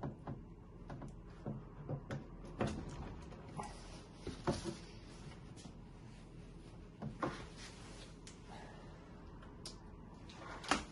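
Scattered light knocks and clicks a second or more apart, the first as a power cord's plug is pushed into the socket on the back of a stainless-steel waffle maker; the loudest knock comes near the end.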